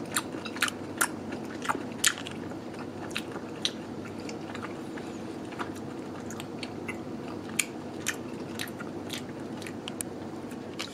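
Close-up chewing of vinegared octopus (sudako): irregular clicks and crunches from the mouth, over a steady low hum.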